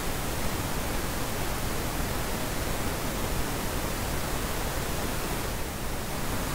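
Filtered pink noise playing steadily: an even hiss with its top end slightly turned down and a small dip around 4 kHz, shaped to follow equal-loudness curves.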